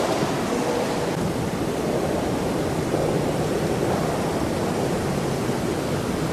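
Steady, even rushing noise of room ambience, with no distinct events.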